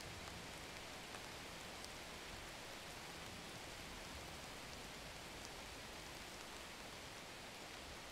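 A faint, steady hiss with no distinct sounds in it, even throughout.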